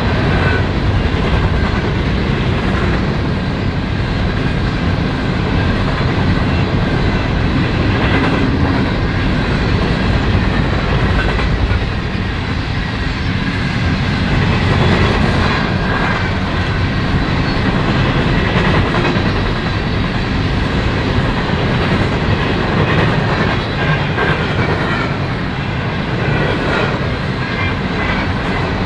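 Freight train's open-top hopper cars rolling past at speed: a steady rumble of steel wheels on rail with the clickety-clack of wheels over rail joints.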